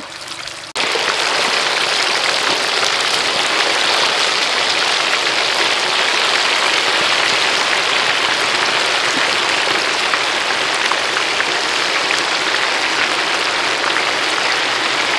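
Chicken wings deep-frying in a wok of hot oil: a loud, steady sizzle of bubbling oil that starts suddenly under a second in.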